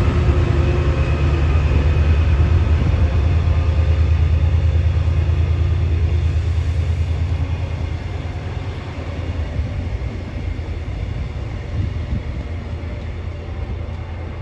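Class 68 diesel locomotive's Caterpillar V16 engine running as it passes, a loud, low drone that fades after about seven seconds. Then the steady rumble of the passing coaches' wheels on the track.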